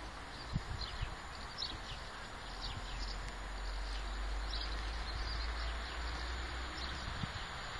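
Small birds chirping in short high calls, about one every second, over a steady low rumble with a few soft knocks.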